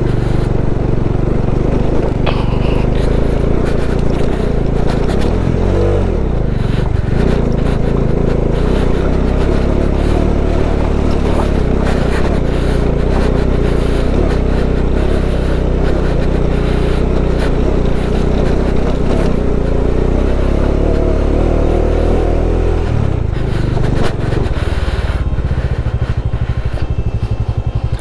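Bajaj Dominar 400 single-cylinder motorcycle engine running under load as the bike is ridden up a steep, rough off-road climb, with scraping from the track surface. Near the end it settles into an even, regularly pulsing idle.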